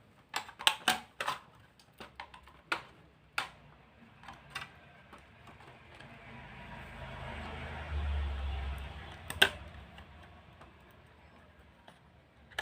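Small hard clicks and taps of hardware being handled, then a rustle with a low rumble that swells and fades over a few seconds, and one sharp click near the end of the rustle.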